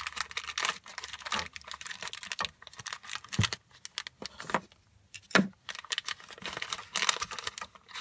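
Clear plastic packaging of a push-to-connect PEX fitting being opened and handled, crinkling and clicking irregularly. There are a few sharper clicks, the loudest about five seconds in, as the fitting and its small parts are set down on a wooden table.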